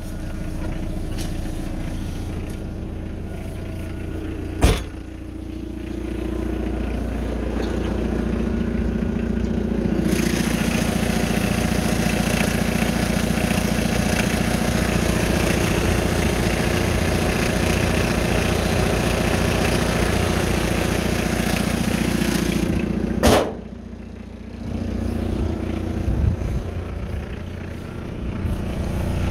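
1985 Chevy S10's 2.2 L Isuzu C223 four-cylinder diesel idling with a steady clatter, which grows louder and brighter about ten seconds in. Two loud metal slams cut through it, about five seconds in and again near the end.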